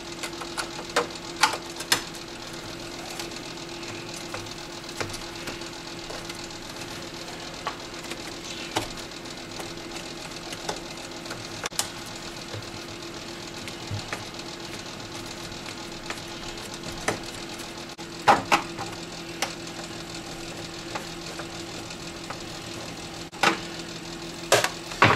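Screws being undone from a CRT monitor's plastic back case with a hand screwdriver: scattered clicks and taps of plastic and metal, a few louder ones near the end, over a steady machine hum.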